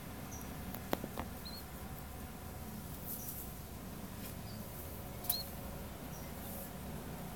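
A ground dove giving about five tiny, high, squeaky peeps at irregular intervals, a few with a little upward flick, with a few sharp taps about a second in and again near the fifth second.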